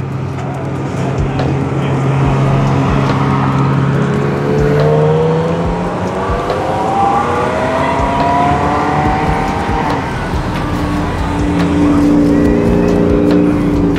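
Cars driving past one after another, engines pulling away. One engine climbs steadily in pitch through the middle as it accelerates, and another pulls past near the end.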